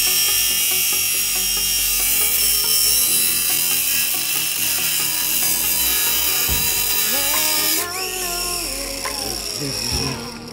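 Angle grinder with a cutoff wheel cutting through a metal mini bike frame tube, a loud steady hiss that stops about eight seconds in. Background music is left after it.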